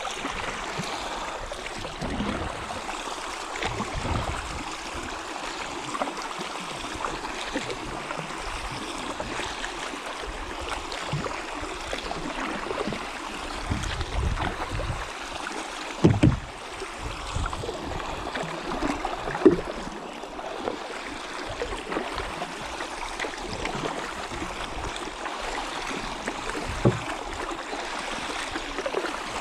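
Water sloshing and splashing around a kayak on a river, with irregular small splashes and a few sharp knocks, the loudest about halfway through.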